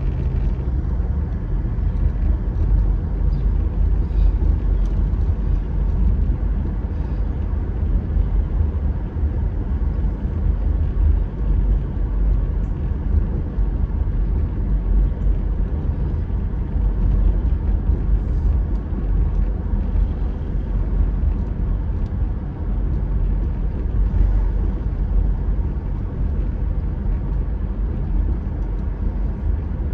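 Car driving along town streets, heard from inside the car: a steady low rumble of engine and road noise.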